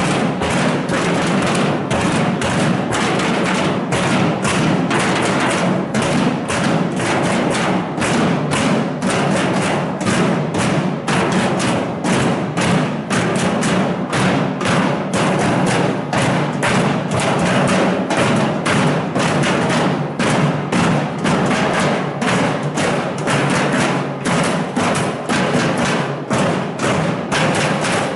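Many protesters knocking and drumming at once: a loud, dense, uneven clatter of strikes, several a second, without a break.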